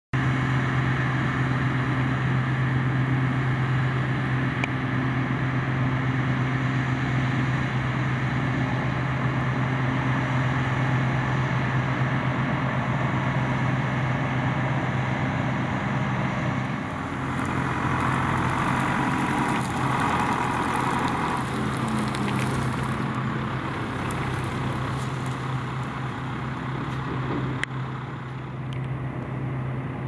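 Claas Lexion 410 combine harvester working through a barley crop: a steady engine drone with machinery running beneath it. About 17 s in the sound shifts, and a brighter hiss rises for a few seconds.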